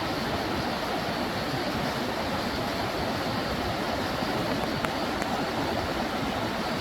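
Steady rush of a stream's running water, an even noise with no change in level.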